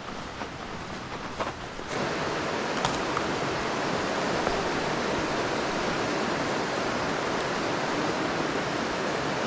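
Shallow, rocky river rushing over stones in riffles, a steady rush of water that starts abruptly about two seconds in. Before it there is a quieter stretch with a few faint clicks.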